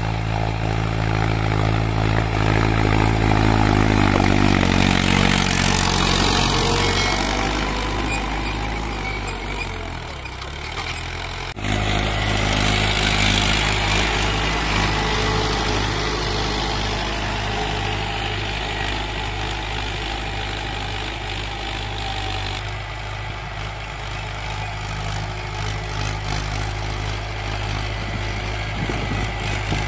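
Mahindra Arjun Ultra-1 555 DI tractor's diesel engine running steadily under load as it pulls a tine cultivator through ploughed soil. The engine note shifts a few seconds in, and the sound changes abruptly to a louder, steady run just before the middle.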